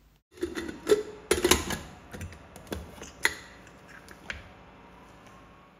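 Pressure cooker lid being fitted and locked shut by its handle: a series of irregular metal clicks and clunks, loudest about a second and a half in and again near the three-second mark, then thinning out.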